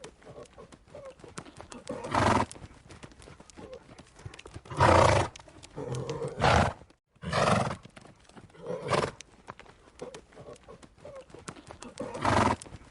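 Horse snorting: about six short, forceful blasts of breath through the nostrils, a few seconds apart, with a pair close together in the middle. Faint clicks and knocks sound between them.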